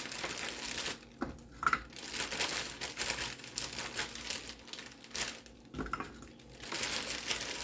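Potato rounds frying in an oiled skillet: a crackling sizzle that drops away briefly twice, with a few light knocks.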